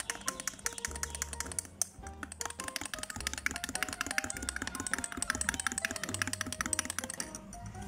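Background music with a bass line and shifting held notes, over a dense run of rapid, fine clicks.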